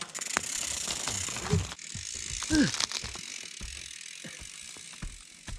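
Mountain bike coasting down a dirt trail: the rear hub's freewheel buzzes over a steady hiss of tyres on dirt, with scattered clicks and rattles from the bike. A short vocal cry comes about two and a half seconds in.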